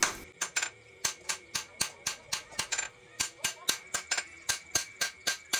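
Hammer blows forging a red-hot pattern-welded steel badik blade on an anvil, flattening it: sharp, evenly paced strikes at about four a second.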